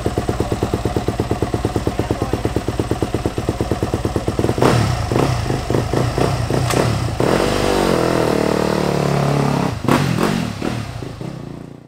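Yamaha YZ250F's four-stroke single-cylinder motocross engine idling with an even, fast pulse. About halfway through it is blipped several times and then revved, its pitch rising and falling.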